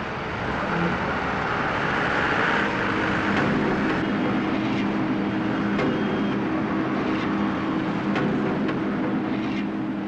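Steady mechanical noise with a low hum and scattered sharp clicks, cutting off at the end.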